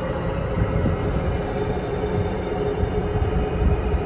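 Steady cabin roar of a Boeing 737-500 in flight, heard from inside its lavatory: a low rumble of airflow and engines with a steady hum over it.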